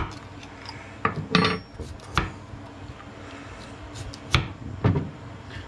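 Metal spoon scraping and clicking against a horned turban (sazae) shell as the meat is pried out. There are several sharp, irregular clicks and knocks, the loudest around four and a half seconds in.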